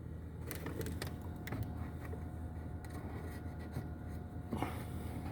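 Plastic clicks and rattles as the cabin air filter housing cover and filter behind the glovebox are handled. There is a run of light clicks from about half a second in and a brief scrape near the end, over a steady low hum.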